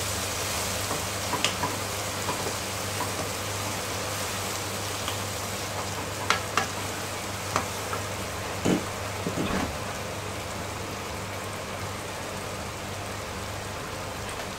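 Chopped onions and tomatoes with chilli powder sizzling steadily in hot oil in a non-stick pan. A few sharp knocks of a wooden spatula against the pan come in the first ten seconds.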